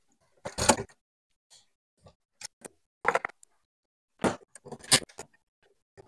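Wires and light switches being pushed and folded into a metal 3-gang outlet box by hand: a few separate short clinks, knocks and rustles of metal and wire with pauses between them.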